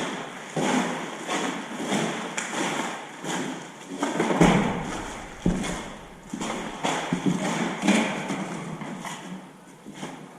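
Footsteps walking on a hard floor, about two steps a second, with one heavier thud about halfway through.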